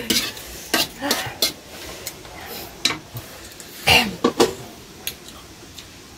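Eating sounds at a table: scattered short clicks and clinks of dishes and chewing mouth sounds, a handful of separate sounds spaced about a second apart.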